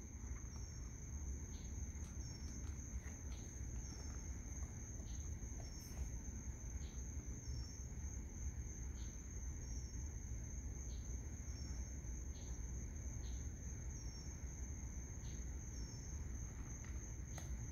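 Night insects trilling in a steady high-pitched drone, with a short faint chirp repeating about once a second, over a low steady rumble.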